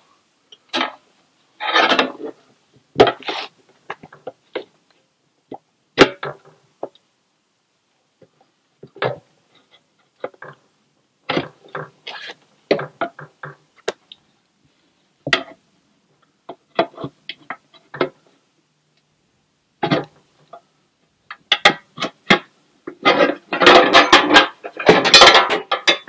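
Tire spoons clicking, knocking and scraping against an aluminum wheel rim in short, irregular clatters as the tire bead is pried off in small bites, with a denser stretch of rubbing and scraping near the end as the bead comes free.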